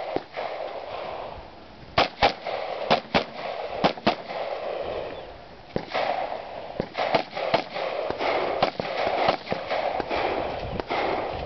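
Bushmaster XM-15, an AR-15-pattern carbine in 5.56 mm, fired in a string of sharp shots, mostly quick pairs, as the shooter engages targets. One burst of shots comes about two seconds in and a longer, denser run from about six seconds on, over a steady background hiss.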